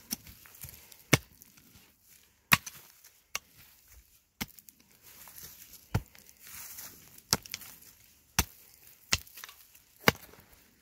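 A wooden-handled digging hoe chopping into hard, dry soil: about ten sharp strikes, roughly one a second at an uneven pace.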